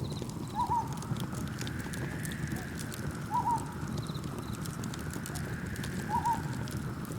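Layered campfire ambience: wood crackling and popping over a low steady rumble, with a soft rushing swell that rises and fades twice. A short double chirp repeats about every three seconds, with faint quick insect trills higher up.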